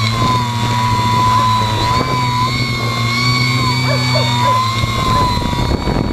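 Hexacopter's electric motors and propellers whining steadily as it climbs, the pitch wavering slightly with throttle changes. From about four and a half seconds in, wind buffets the microphone.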